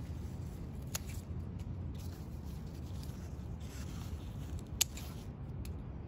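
Garden snips cutting plant stems: two sharp snips about four seconds apart, over a steady low city rumble.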